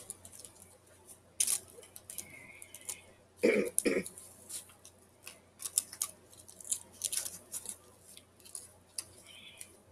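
Rustling, crinkling and sharp clicks of packaging and a small plastic replica being handled, with a louder two-part cough-like burst about three and a half seconds in.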